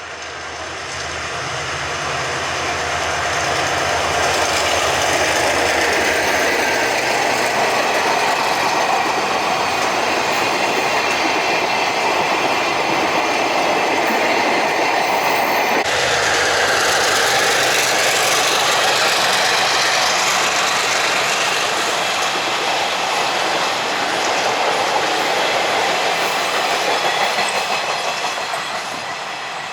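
Taiwan Railways R20-class diesel-electric locomotive hauling a freight train past: the diesel engine's low hum, then the rolling rumble and clickety-clack of the freight wagons. About halfway through the sound changes abruptly, and the locomotive's hum is heard passing again.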